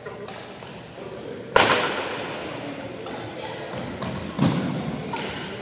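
Badminton racket smacking a shuttlecock sharply about a second and a half in, echoing around the gym hall, then a duller thud a few seconds later, with a few fainter knocks between.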